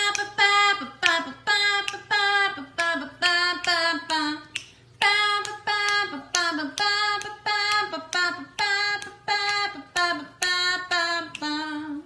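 A high voice singing a tune unaccompanied, in short, evenly paced notes about two a second.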